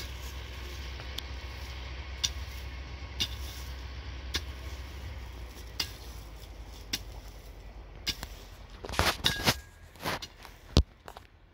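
A hand hoe striking and scraping dry, hard ground, about one stroke a second, over a low steady rumble. Near the end come a few louder, quicker knocks and rustling.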